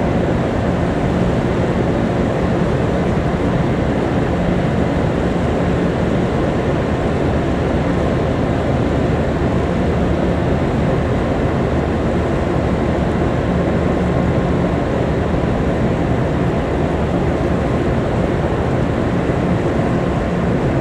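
Steady rumble of a car ferry under way, a constant low engine hum under an even wash of noise.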